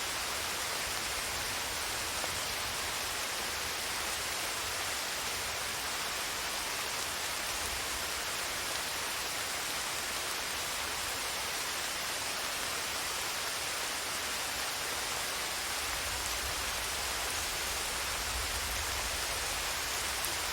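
Heavy rain falling as a steady, even hiss. A low rumble of distant thunder swells beneath it near the end.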